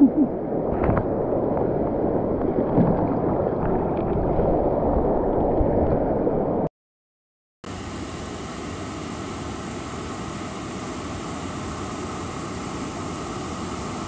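Rushing water of a swollen river around a moving canoe, dull and muffled. About seven seconds in it cuts off for a second, then the brighter, steady rush of whitewater rapids among rocks takes over.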